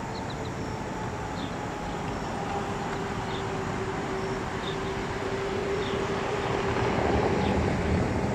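A steady motor hum with a low rumble, swelling somewhat about seven seconds in, with a few faint high chirps over it.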